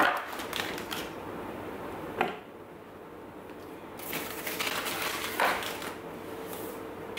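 Paper butter wrapper crinkling and rustling while a knife cuts a piece off the block, with a few sharp taps. It goes quiet for a second or two in the middle, then the crinkling starts again.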